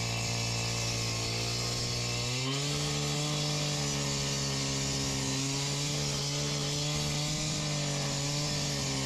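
Power saw running steadily, its pitch stepping up slightly about two seconds in, as a cut is made along a board used as a guide.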